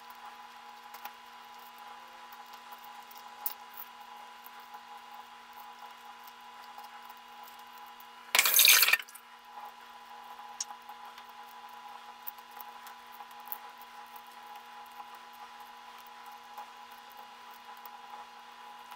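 Hard-boiled eggs being peeled by hand over a plastic bag of shells: faint crackling and small clicks of shell coming away, with one louder half-second crackle a little past eight seconds in.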